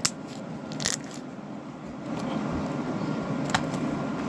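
Slime being squeezed and handled, with a few sharp crackling clicks and a low rustling noise that gets louder about two seconds in.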